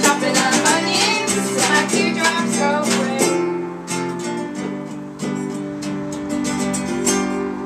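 Acoustic guitar strumming chords with a drum beaten along; the drum hits come thick for about three seconds, then thin out while the guitar rings on.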